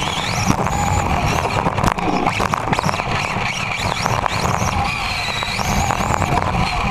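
Onboard sound of an RC touring car racing on a carpet track: the electric motor's high whine rises and falls with speed over a dense low rumble, with a few knocks about two seconds in.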